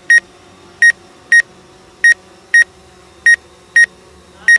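Electronic warning beeper of a DJI Phantom 4 drone setup, sounding short high beeps in pairs about half a second apart, a pair every second and a quarter or so.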